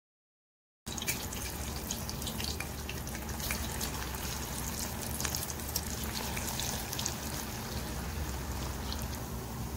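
Marinated veal pieces deep-frying in a pan of hot oil: a steady sizzle full of small crackles and pops. It starts abruptly about a second in.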